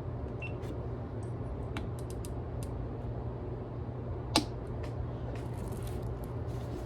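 A single sharp, short shot about four seconds in from a moderated .25 calibre FX Crown PCP air rifle, over a steady low rumble, with a few faint clicks before and after it.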